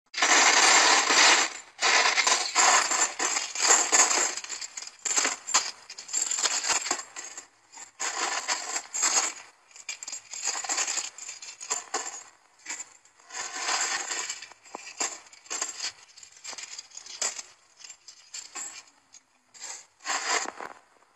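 Coins clinking and rattling in uneven bursts, as if handled and counted out; loudest at the start, then sparser and quieter clinks.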